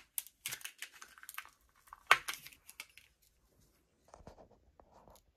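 Clear plastic packaging crinkling and tearing as it is pulled off a spool of thread, in sharp crackles through the first three seconds, loudest about two seconds in, then fainter rustles.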